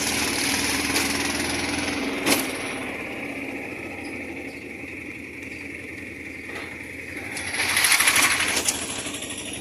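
Small vehicle engine running steadily, growing louder and noisier for a second or two about eight seconds in, with a short click about two seconds in.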